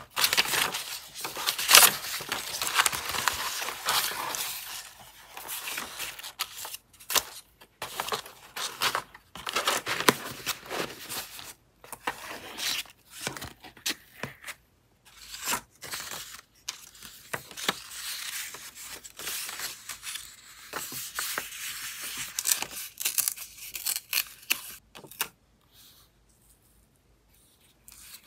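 Paper scraps handled: sheets rustling and crinkling, with tearing, thick for the first ten seconds or so and then in scattered short spells.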